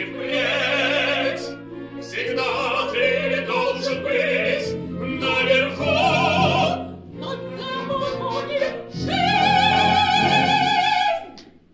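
Operatic-style singing with instrumental accompaniment. It ends in a long high note held with vibrato that cuts off sharply near the end.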